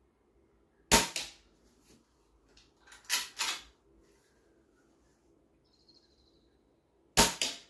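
Weihrauch HW100 .22 PCP air rifle firing three shots, each a short sharp crack: about a second in, around three seconds in, and near the end. The shot around three seconds is followed a moment later by a second crack as a pellet strikes a tin can.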